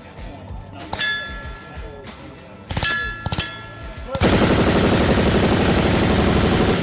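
Gunfire ringing steel targets: a clang about a second in and two more just before three and a half seconds. Then an unbroken full-auto burst of about two and a half seconds, the loudest sound here.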